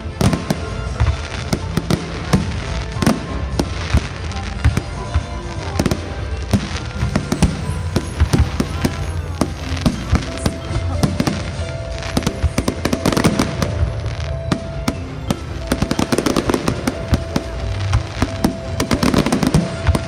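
Fireworks going off in a rapid string of bangs and crackles, densest near the end, over music with held notes.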